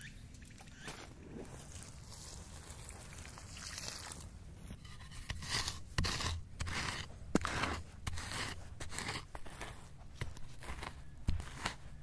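A wooden stick scraping and raking through ash, soil and dry leaf litter in repeated strokes, starting a few seconds in, with one sharp click partway through. The strokes are a spent campfire's ash bed being worked into the ground and covered over with forest litter.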